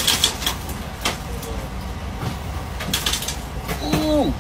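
Sharp knocks and cracks from a semi truck's side window being struck to pop the glass: a cluster at the start, one about a second in, and another cluster about three seconds in, over a low steady rumble.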